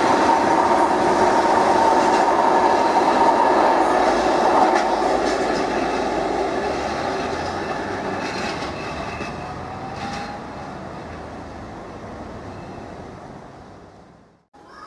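Container freight train's loaded wagons rolling past and away on the rails, wheels clacking over rail joints. The sound fades steadily over about ten seconds, then cuts off abruptly near the end.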